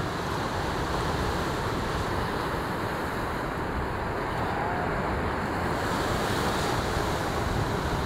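Steady wash of ocean surf, with wind rumbling on the microphone.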